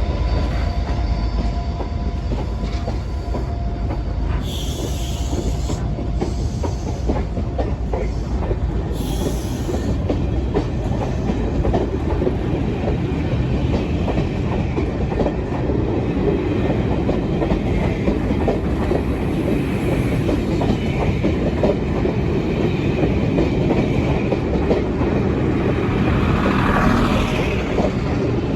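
A train running past on the main line, its wheels clattering steadily over the rail joints, with brief high-pitched bursts about five and nine seconds in.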